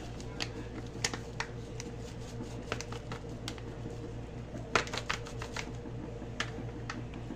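Plastic bag of seafood breading flour crinkling and crackling as it is shaken out over fish in a bowl, in irregular crackles, the loudest about five seconds in, over a steady low hum.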